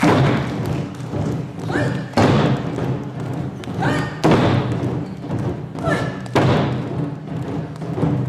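Music with a heavy booming hit about every two seconds, each hit led in by a short rising tone, over a steady low drone.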